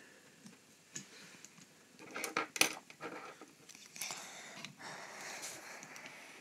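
Small plastic parts of a model tram clicking and knocking as an interior plate is worked back into the body by hand and with a plastic tool, the sharpest clicks about two and a half seconds in. Someone breathes audibly close to the microphone.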